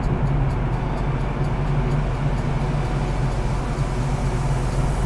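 Steady low drone of a ro-ro ferry's diesel engines running, with a constant hum and no change in pitch.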